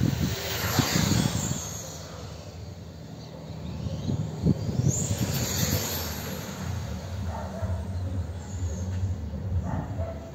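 A radio-controlled car driving fast along the asphalt street, its high-pitched motor whine falling away near the start, then rising and falling again as it speeds past about five seconds in.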